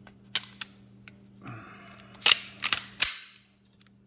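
Glock 19 pistol being reassembled. A few light clicks come first, then the slide scrapes along the frame rails about a second and a half in. Three sharp metallic clacks follow within a second as the slide snaps home and is worked.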